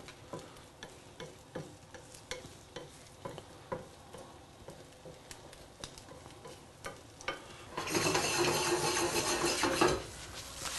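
Wooden spatula stirring and scraping a frying egg mixture in a nonstick pan, with light clicks and taps against the pan over a soft sizzle. About eight seconds in, the sizzle grows louder for some two seconds and then drops off suddenly.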